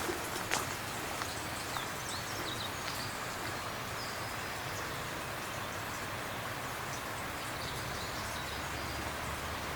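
Outdoor lakeside ambience: a steady hiss with a few faint, short bird chirps in the first half and scattered light ticks near the start.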